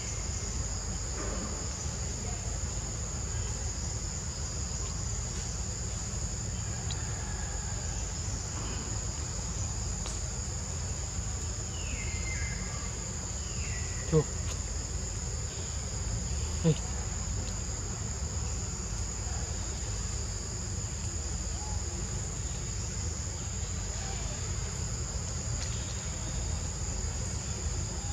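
Insects shrilling steadily at a high pitch over a low rumble, with a few short falling chirps around the middle. Two sharp clicks about two and a half seconds apart, just past the middle, are the loudest sounds.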